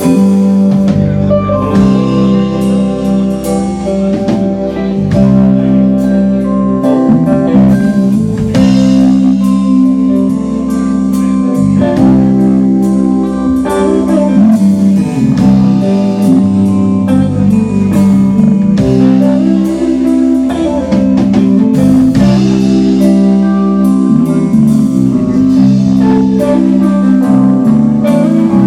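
Live rock band playing loudly: several electric guitars over a drum kit, in an instrumental passage without vocals.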